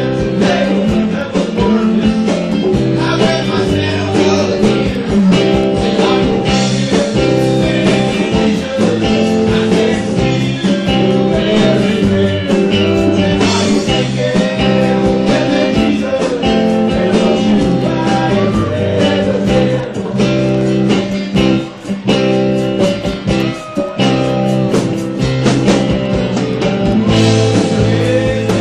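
Live rock band playing an instrumental jam: electric guitars over bass and drums, loud and continuous.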